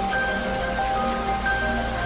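Steady rain falling, mixed with soft, slow music: a melody of held notes, a new one every half second or so.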